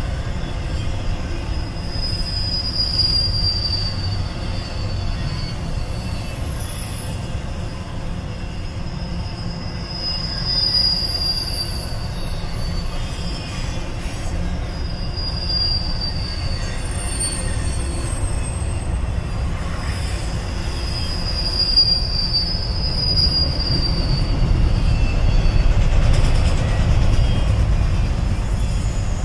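A double-stack intermodal freight train rolling past: a steady low rumble of wheels on rail, with high-pitched wheel squeal that comes and goes every few seconds, each squeal sliding slightly down in pitch. The train gets louder near the end.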